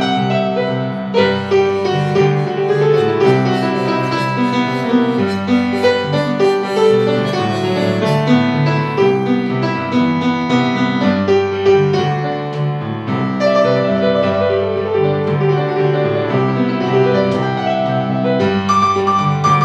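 Background instrumental piano music, a steady flow of notes and chords; no motorcycle engine is heard.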